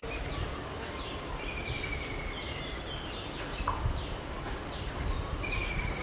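Birds chirping: many short, high, down-slurred chirps repeat throughout, with a longer steady whistle about a second and a half in and again near the end, over a low rumbling background noise.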